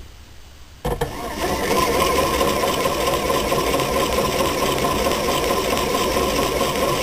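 Rhombic-drive Stirling engine starting up suddenly about a second in and running steadily with a mechanical rattle and a steady hum. It is being driven backwards by its generator running as a motor, so it works as a heat pump warming the top heat exchanger.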